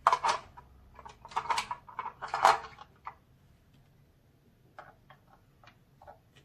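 Plastic toy pieces clattering and knocking together as they are handled, in a quick run of loud clatters for about three seconds, then a few light clicks near the end.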